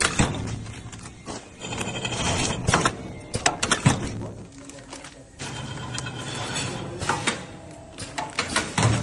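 Powder packing machine running, with a steady low hum and irregular mechanical clicks and clunks.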